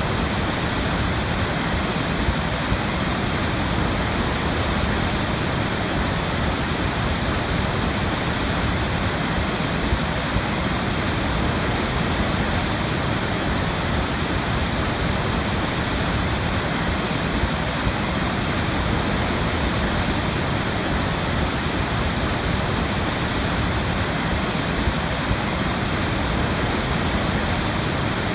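Large waterfall: a steady, dense rush of falling water, even throughout with no breaks.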